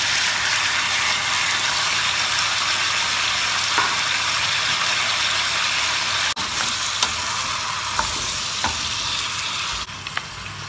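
Chicken pieces and diced onion sizzling in hot oil in a stainless steel pot while a wooden spoon stirs them, with a few light clicks. The sizzle drops away suddenly near the end.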